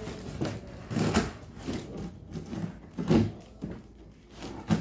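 Packing tape on a cardboard box being scraped at and peeled, with scratching and cardboard rustle in irregular strokes, the loudest about a second in, three seconds in and near the end.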